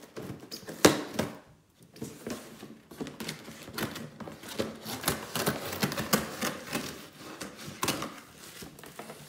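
Scissors cutting through a cardboard shipping box: a sharp click about a second in, then a run of quick snips and scraping as the blades work along the cardboard.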